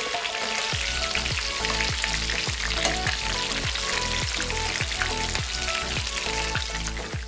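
Chicken lollipops deep-frying in a pan of hot oil, sizzling and bubbling steadily as they near golden brown. Background music with a steady beat of low drum thumps, about one every 0.6 s, comes in under it about a second in.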